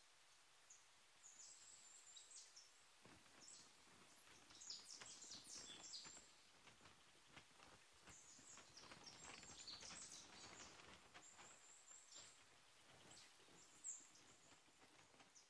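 Faint rustling of a brown paper shopping bag and the clothes being lifted out of it, in irregular crinkly bursts with a slightly louder rustle near the end. A few faint high chirps run through it.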